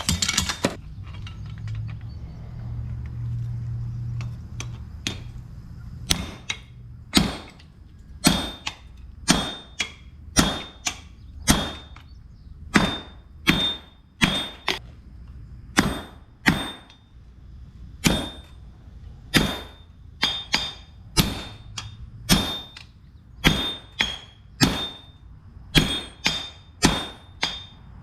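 Hammer blows on steel at an anvil while forging an axe head, about one strike a second with a short metallic ring after each. A low hum is heard in the first few seconds before the striking begins.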